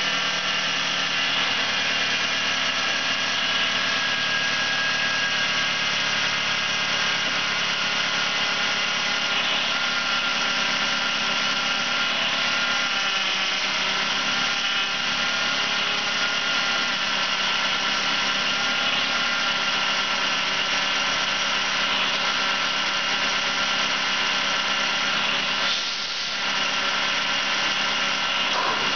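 2001 Chrysler PT Cruiser's DOHC 16-valve four-cylinder engine idling steadily during a running test, heard close up from above the open engine bay.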